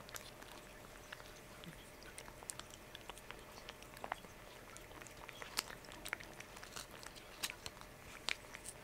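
A calico cat licking a paste treat from a squeeze tube held in a hand: faint, irregular wet clicks and smacks of the tongue and mouth.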